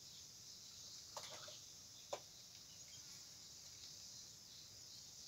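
Near silence: a faint steady high-pitched hiss, with two faint short knocks about one and two seconds in.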